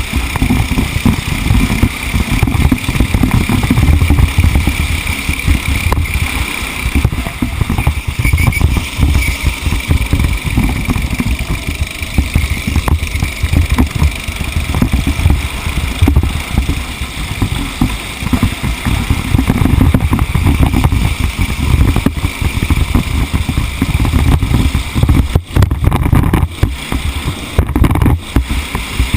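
Racing vehicle's engine running hard at speed, loud and unbroken, with a rough, choppy low rumble and a faint steady whine in the first several seconds.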